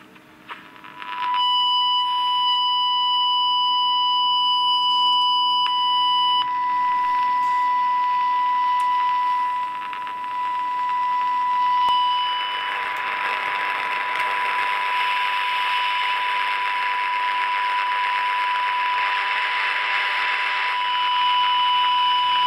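Steady high test tone from the small speaker of a Qiuxin HX108-2 medium-wave superhet kit radio, receiving a tone-modulated signal while its oscillator core is being aligned. The tone comes in about a second in, and hiss rises under it in the second half.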